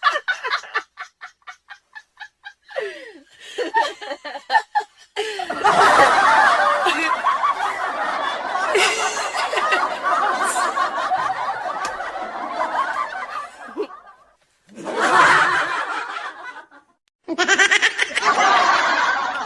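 People laughing. It starts with quick rapid pulses of laughter, breaks into a long, loud stretch of overlapping laughter from about five seconds in, then comes back in two shorter bursts near the end.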